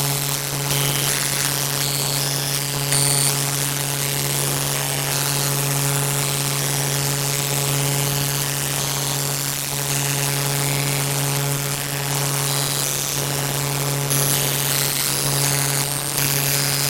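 A loud, steady droning hum built on one strong low tone with a ladder of overtones, with short high-pitched tones coming and going above it.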